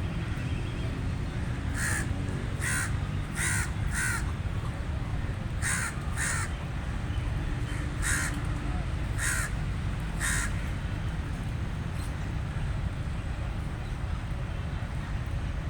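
A crow cawing: about eight short caws between roughly two and ten seconds in, several coming in quick pairs, over a steady low background rumble.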